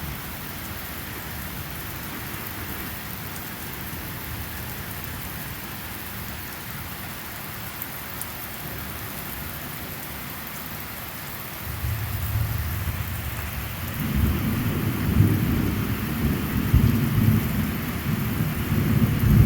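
Steady rain falling in a thunderstorm. About twelve seconds in, a low rumble of thunder starts; it grows louder from about fourteen seconds and swells in uneven peaks to the end.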